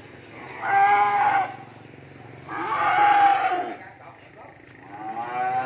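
Cattle mooing: three loud moos, each a second or more long, the last one beginning near the end and held longer.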